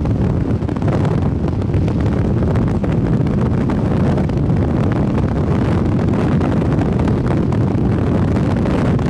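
Wind buffeting the microphone of a camera filming from a car on the highway, a steady low rumble mixed with road noise from the car.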